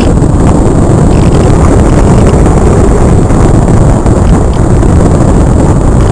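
Loud, steady rush of air over the onboard camera's microphone of a Multiplex Cularis RC model glider in flight.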